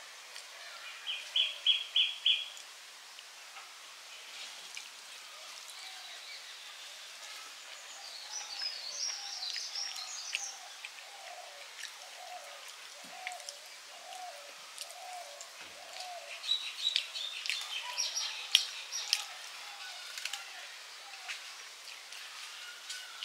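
Birds singing and calling: a loud run of five quick chirps about a second in, a lower call repeated over and over a little faster than once a second through the middle, and bursts of high twittering near the middle and again later.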